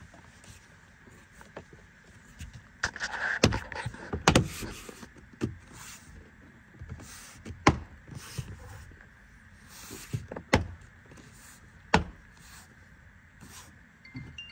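Plastic inner door trim panel of a 2022 Subaru Outback being pushed and slapped onto the door by hand: scraping as it slides into place about three seconds in, then about six sharp knocks spread over the next nine seconds as its push-in retaining clips snap home.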